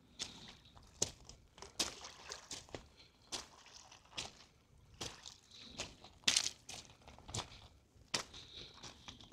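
Footsteps of a person walking at a steady pace, a little more than one step a second.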